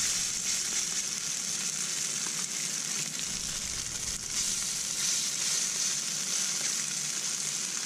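Salmon patties frying in oil in a stainless-steel skillet: a steady, high sizzling hiss.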